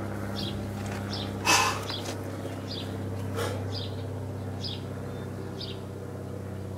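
A small bird chirping over and over, one short high call about every second, over a steady low hum. One louder, short raspy sound about a second and a half in.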